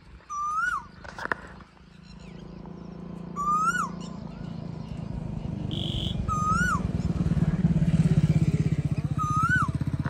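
Asian koel (koyal) calling: a clear whistled note that rises and then drops quickly, four times about three seconds apart. Under it a low engine hum with a fast beat comes in after about two seconds and grows louder, ending as the loudest sound.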